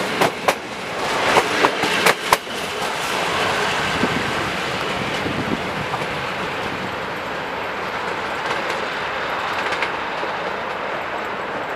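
Passenger train coaches' wheels clacking sharply over rail joints for the first couple of seconds as they pass, then a steady rumble that slowly fades as the train moves away.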